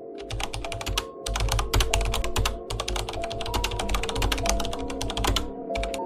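Fast, irregular computer-keyboard typing clicks in runs with short pauses, over soft music with held notes.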